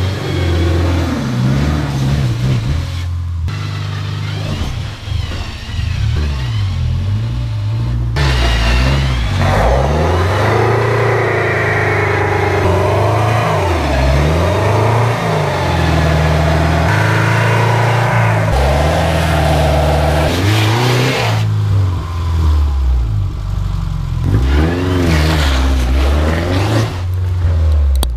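Subaru engine revving up and down repeatedly under load on a steep offroad climb, its pitch rising and falling again and again.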